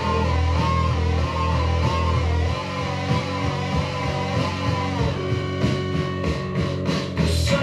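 Background music: a song with guitar over sustained low bass notes.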